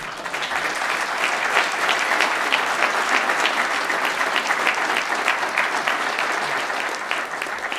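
A large seated audience applauding, a dense steady clapping that starts all at once and eases slightly near the end.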